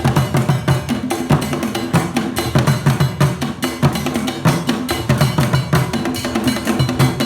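Kete drum ensemble, the Akan royal drum music, playing a fast interlocking rhythm of many sharp drum strokes with deep pitched drum tones and dry knocking hits.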